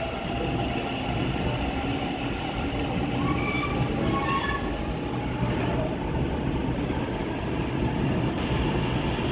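Seoul Subway Line 7 train pulling into an underground station, heard through platform screen doors: a steady rumble of the cars and wheels, with a few brief high squealing tones about three to four seconds in.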